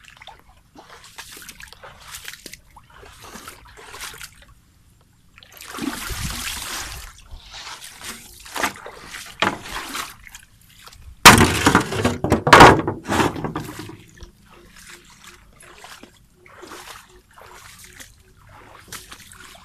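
Footsteps wading through floodwater, sloshing and splashing with each stride. About eleven seconds in, a louder run of splashing lasts a couple of seconds.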